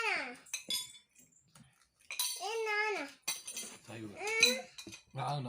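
A high-pitched voice making drawn-out, wordless cries whose pitch bends up and down, three times, with a few light clinks of cutlery against a dish.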